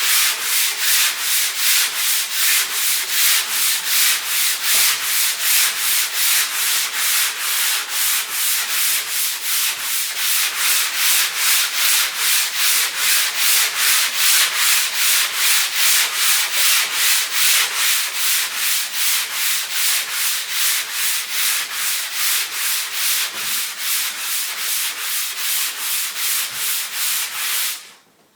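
240-grit sandpaper rubbed back and forth over a primed car hood: steady, even scraping strokes at about two and a half a second, stopping abruptly near the end. The primer is sanding easily.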